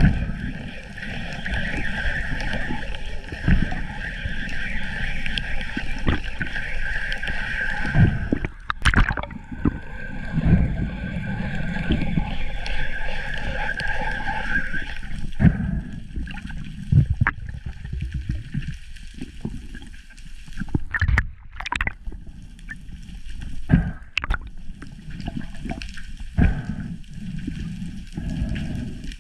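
Underwater sound picked up by a diver's camera: a steady low water rumble and gurgling, with a steady high whine through the first half that stops about fifteen seconds in. Several sharp knocks and clicks are scattered through it.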